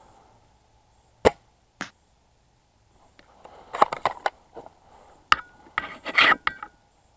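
A spring-powered airsoft bolt-action sniper rifle (JG Bar-10) firing with one sharp snap about a second in, followed by a lighter click. Then a run of metallic clicks and scrapes as the bolt is cycled for the next shot.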